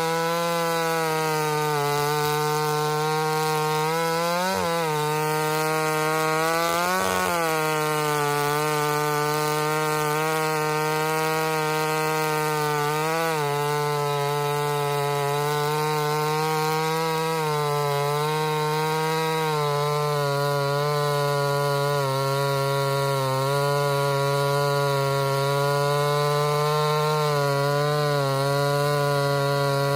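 Ported Homelite VI-130 two-stroke chainsaw running at a steady high pitch, working through a cut in firewood. Its pitch jumps up and back briefly a few times, near 4 s, 7 s and 13 s in.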